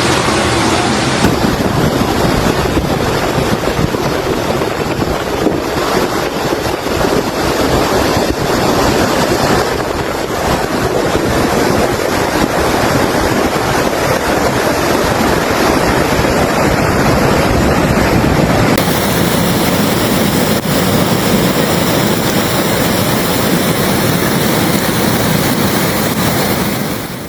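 Floodwater rushing loudly through flooded streets, mixed with wind buffeting the microphone. The noise changes character abruptly about a second in and again about two-thirds of the way through.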